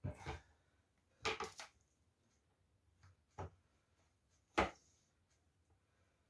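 A few short, sharp knocks of a kitchen knife and hands against a plastic cutting board while a raw whole chicken is slit and worked for stuffing with garlic. There are two knocks right at the start and a quick cluster about a second in, then single knocks a little past three seconds and near four and a half seconds, the last the loudest.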